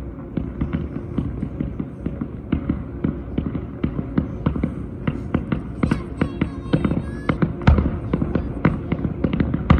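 Fireworks display going off: a dense, irregular run of crackling pops and bangs, with a heavier boom near the end.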